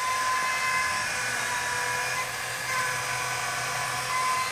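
Hill PCP hand pump driven by twin 12-volt electric motors, running and filling a high-pressure air cylinder. The motors give a steady whine that swells and eases every couple of seconds with the pump's strokes.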